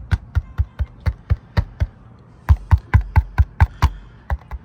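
A quick series of sharp taps or knocks, about four a second, with a short pause a little past two seconds in.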